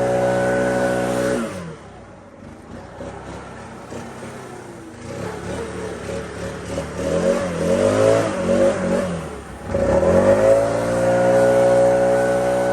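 Lawn mower engine running at a steady speed, fading out for a few seconds, then coming back with its pitch wavering before it rises and settles again at a steady run.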